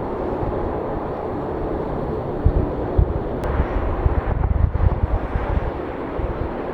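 Jet airliner engine noise: a steady broad rush with an uneven low rumble that grows stronger a couple of seconds in.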